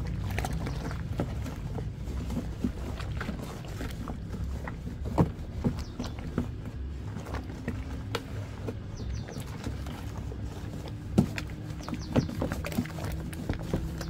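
A flat wooden stick stirs foamy liquid detergent in a plastic basin: liquid sloshing with irregular knocks of the stick against the basin. The two loudest knocks come about five seconds in and about eleven seconds in.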